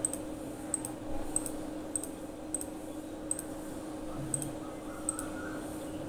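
Computer mouse clicking, about eight short sharp clicks at irregular intervals, over a faint steady hum.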